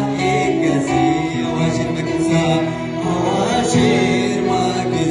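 A man sings a Kunama gospel song (mezmur) into a microphone over keyboard accompaniment holding sustained chords.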